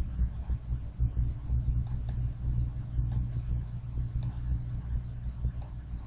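Computer mouse clicking, about five separate clicks over a few seconds, over a steady low hum.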